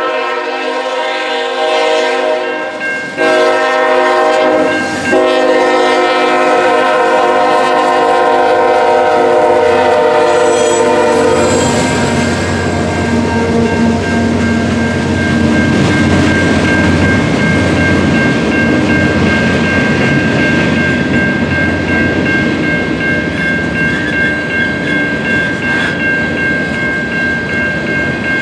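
Nathan K5HL five-chime horn on a GE ET44AC diesel locomotive sounding for a grade crossing: a long blast, a shorter one, then a long one held until about eleven seconds in. After it, the freight cars of a manifest train roll past with wheels clacking over the rail joints and a steady high tone running through.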